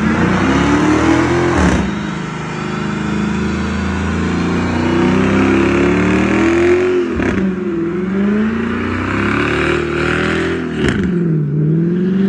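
Hellcat-powered Chrysler 300's supercharged V8 held at high revs during a burnout, its pitch swinging up and down and dropping sharply three times, with a steady hiss of spinning tyres underneath.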